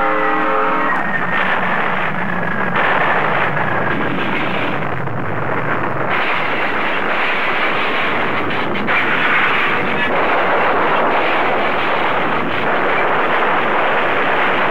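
A freight locomotive's air horn sounds a chord that cuts off about a second in. A loud steady roar of tornado wind follows, lasting to the end.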